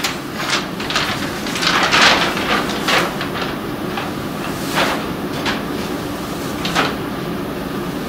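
A large sheet of thick ceremonial paper being handled and folded, rustling and crackling in a series of short bursts, loudest about two seconds in.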